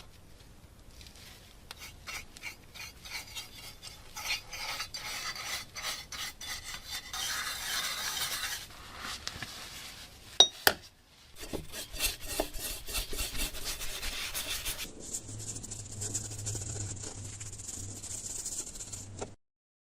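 Rubbing and scraping strokes on the rusty metal of an old oil lamp, with two sharp clicks about ten seconds in. A steady hiss with a low hum takes over near the end and cuts off suddenly.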